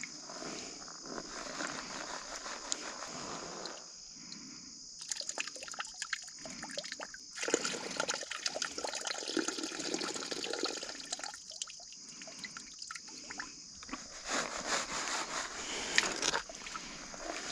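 Water sloshing and splashing in a blue plastic gold pan as it is dipped and swirled in a shallow stream, with gravel rattling against the pan while the sample is washed down. The splashing comes in uneven spells, loudest about halfway through and again near the end.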